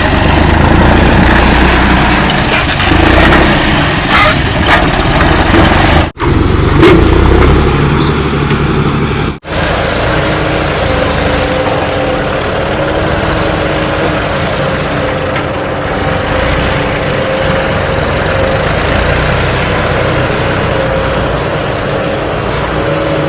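Diesel engines of heavy machinery, a backhoe loader and tipper trucks, running steadily. The sound cuts out abruptly twice, about six and nine seconds in. After about ten seconds a steady pitched hum runs under the engine noise.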